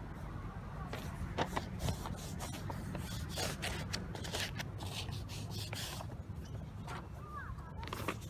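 Outdoor ambience with a steady low wind rumble on the microphone and irregular rubbing and scraping sounds, a few of them sharper, at uneven intervals.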